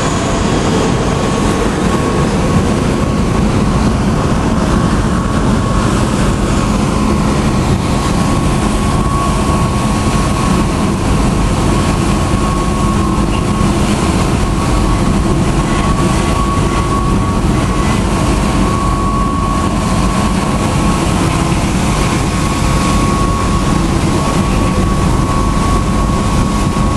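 Loud, steady drone of a passenger ferry's engines under way, with a constant high whine running through it.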